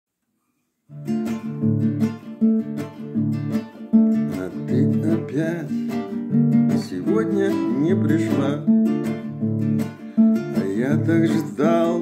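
Acoustic guitar playing a strummed chord introduction to a song, starting about a second in.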